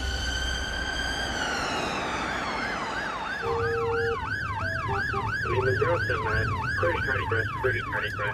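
Ambulance siren. A long wail slides down in pitch over the first few seconds, then switches to a fast yelp that rises and falls about two and a half times a second, over a low rumble from the vehicle.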